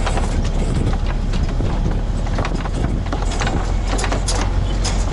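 Diesel engine of a Volvo EW60E wheeled excavator running steadily, heard from inside the cab, with irregular light clicks and knocks over the drone.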